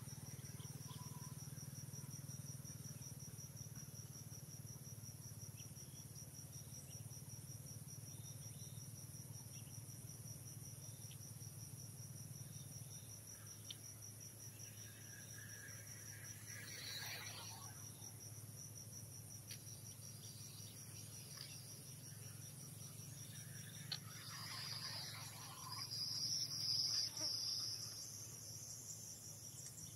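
A chorus of insects trills steadily at a high pitch with a fast even pulse, over a low steady hum. A louder high-pitched sound swells briefly near the end.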